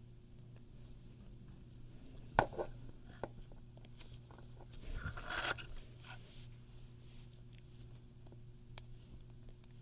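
Steel hook pick and tension wrench working inside a brass Master Lock 140 padlock: faint metallic scraping as the pins are probed, with a sharp click about two and a half seconds in, a scratchy stretch around five seconds and another small click near the end. A steady low hum runs underneath.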